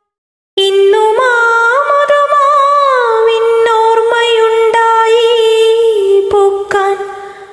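A woman's voice singing one long drawn-out note without words, unaccompanied. It comes in about half a second in, climbs and bends, settles lower, and fades away near the end.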